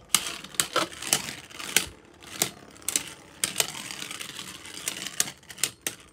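Two Beyblade Burst spinning tops, Brave Valtryek among them, whirring in a plastic stadium and clashing with irregular sharp clicks and clacks, some in quick clusters. A light steady hiss of the spinning tops carries on between the hits.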